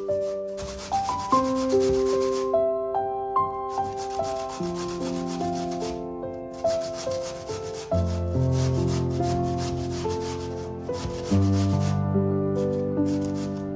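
Vegetables being grated on a hand grater: a continuous rasping with a few short pauses. Gentle background music with slowly changing notes plays underneath.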